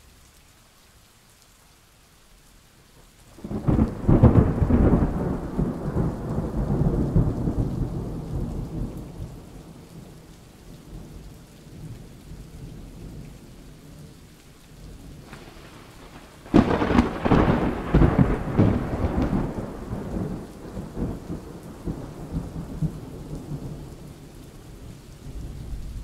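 Thunderstorm: steady rain with two loud thunderclaps, one about three and a half seconds in and another about sixteen seconds in. Each begins with a sudden crack and rumbles away over several seconds.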